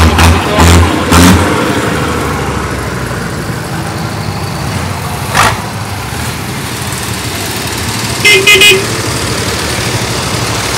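Vintage tractor engines running as tractors pass one after another, the Volvo BM tractor's engine chugging loudly in the first second and a half before settling to a steady drone. Near the end, a vehicle horn gives a quick series of about three short toots.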